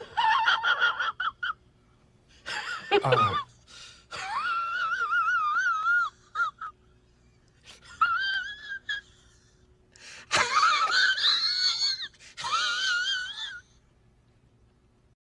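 A meme sound effect of a high-pitched voice: about six separate squeals of wobbling pitch, with short pauses between them.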